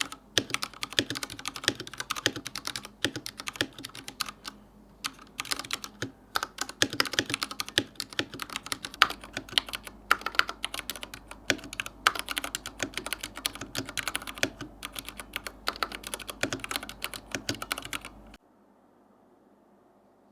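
Typing on an IQUNIX F96 Joker mechanical keyboard: a fast, irregular stream of key clicks with a few short pauses, stopping about two seconds before the end.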